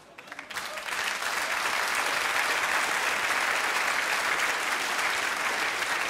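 Audience applauding, swelling quickly about half a second in and then holding steady.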